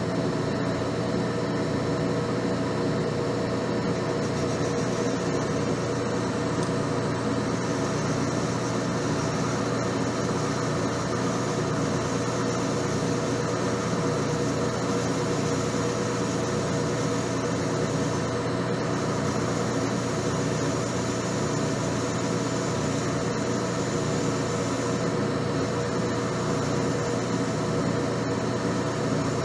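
Metal lathe running steadily with a hum from its motor and gears while a part is turned in a 5C collet. A higher hiss joins about a quarter of the way in and drops out briefly twice.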